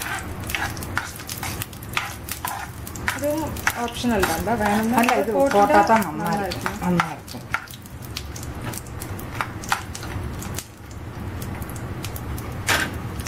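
Raw peanuts frying in a little sesame and coconut oil in a ceramic-coated pan, sizzling, while a spatula stirs them with many light scrapes and taps against the pan. A voice is heard for a few seconds in the middle.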